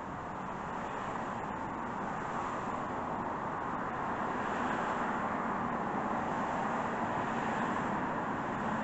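Steady rushing noise that grows a little louder over the first few seconds.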